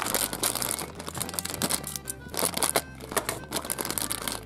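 Thin clear plastic bag crinkling and rustling in irregular crackles as hands pull it open, over background music.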